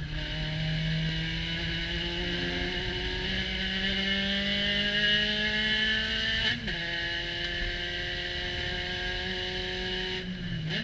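Spec Racer Ford Gen3's Ford 1.6-litre four-cylinder engine under full throttle, heard from the cockpit. The revs climb steadily in third gear, drop suddenly at an upshift about six and a half seconds in, then pull in fourth; near the end the engine note falls away as the throttle comes off.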